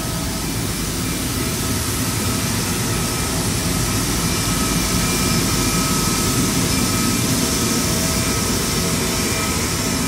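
Steady jet turbine noise: a constant rush with a thin, level whine over it, swelling slightly a few seconds in.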